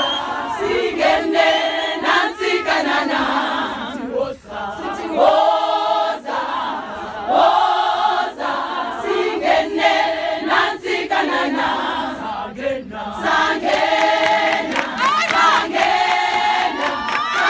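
Large group of women singing together as a choir, a short chant-like phrase repeated in a steady rhythm.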